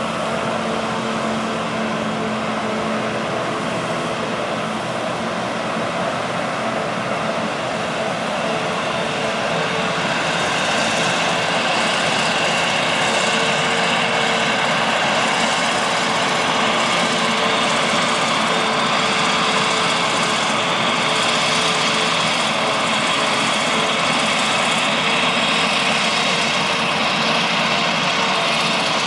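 Claas Jaguar 970 self-propelled forage harvester chopping wheat for silage, its engine and cutterhead running steadily alongside a Fendt Vario tractor hauling the silage trailer. The sound grows louder about ten seconds in.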